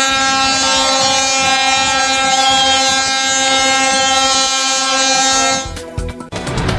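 Ship's horn sounding one long, steady blast that cuts off suddenly near the end, with brief high whistles over it.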